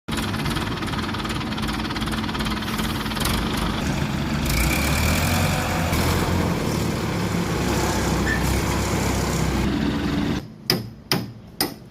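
A machine running steadily with a low hum, cutting off abruptly near the end, followed by a few sharp knocks.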